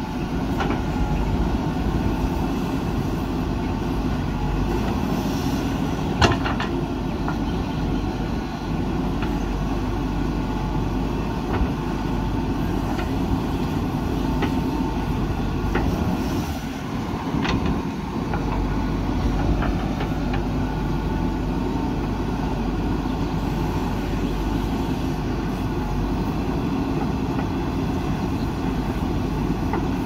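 JCB backhoe loader's diesel engine running steadily as it digs and swings soil into a tipper truck, with a few sharp knocks, the loudest about six seconds in.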